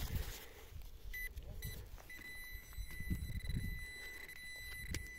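Metal detector sounding a high steady tone: two short beeps, then a continuous tone from about two seconds in, over faint scraping of soil. It is signalling a buried iron object in the dig hole, which turns out to be an iron hook.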